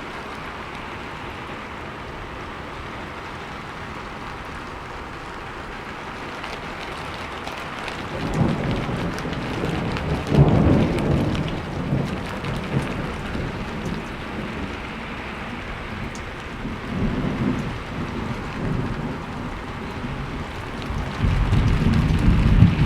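Steady rainfall with thunder rumbling in from about eight seconds in, a loud low roll a couple of seconds later and more rolls near the end.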